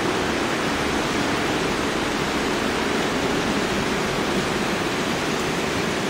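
Shallow river rushing over stones and riffles: a steady, even rush of water.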